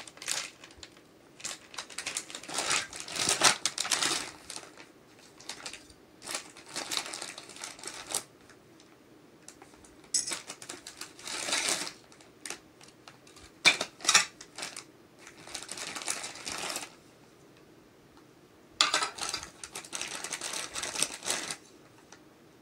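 Clear plastic bag crinkling and rustling in irregular bursts as it is handled and emptied, with a few sharp clicks of plastic toy pieces.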